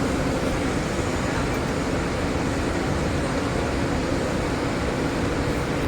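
Steady industrial machinery noise with a constant low hum running underneath, even throughout.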